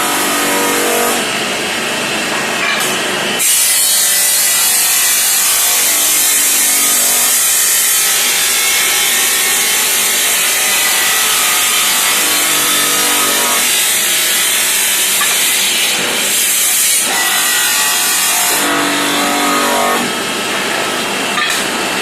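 Automatic tile-cutting machine running and sawing through ceramic tile: a continuous loud grinding hiss with a machine whine that comes and goes.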